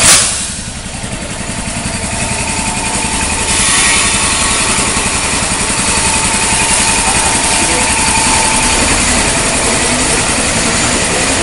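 CPTM electric train 1119 pulling away, its traction drive making a loud, continuous rumbling 'snore' that stands out as excessive. The noise gets louder and brighter about three and a half seconds in, and a faint rising whine comes in near the end as the train gathers speed.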